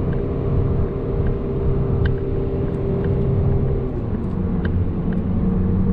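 In-cabin sound of a 2011 Audi TT Quattro's 2.0 TFSI (EA888) turbocharged four-cylinder engine running at a held steady speed in second gear, with road noise, during a logged test run. The engine note shifts about four seconds in.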